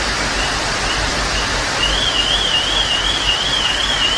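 Torrential floodwater rushing down a street, a loud steady rush. Over it an alarm warbles high, about two and a half wobbles a second, faint at first and clear from about halfway.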